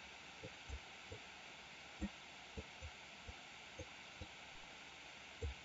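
Faint steady hiss from a laptop microphone, with about ten soft low thumps at uneven spacing, the sort of knocks a mic picks up from hands working a mouse or desk.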